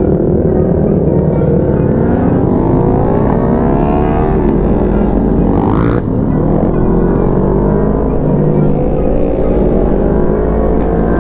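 CFmoto NK400's parallel-twin engine accelerating under way, its pitch rising for a couple of seconds, then breaking off briefly at a gear change about six seconds in before pulling steadily again.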